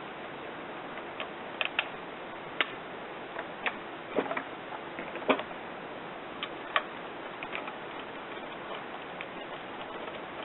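Scattered, irregular clicks and knocks of hand tools and small parts being handled while the plastic starter housing is unbolted from a lawn mower, over a steady hiss.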